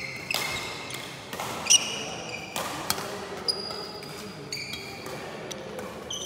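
Badminton doubles play: rackets strike the shuttlecock with several sharp cracks, and shoes squeak in short high chirps on the court floor.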